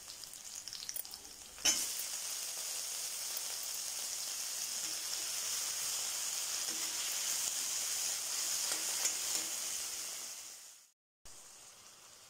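Chopped tomatoes sizzling in hot sesame oil with garlic and shallots. A sudden loud sizzle starts about two seconds in and holds steady, then fades, drops out briefly and comes back fainter near the end.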